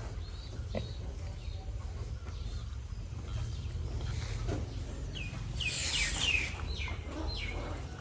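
Pigs squealing: a run of short, high squeals, loudest around six seconds in, over a steady low rumble.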